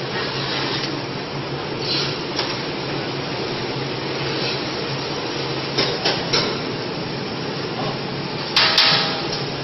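Food-processing machinery running: a steady hum and noise from the popcorn line's conveyor and motors. A few sharp metallic knocks come through, a cluster about six seconds in and a louder clattering knock with a brief ring near the end.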